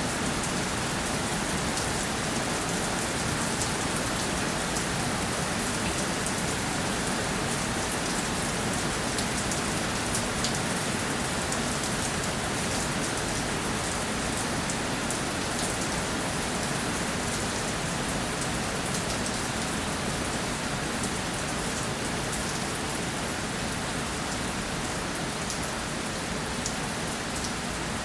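Steady rainfall, a continuous even hiss with individual drops pattering on a surface.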